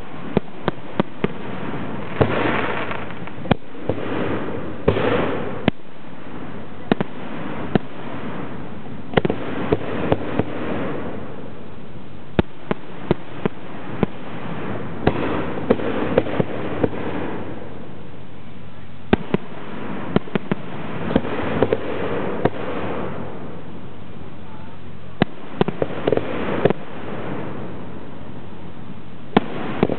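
Zambelli display fireworks: aerial shells bursting in a rapid, irregular series of sharp bangs, dozens in all, with stretches of rushing, crackling noise between them.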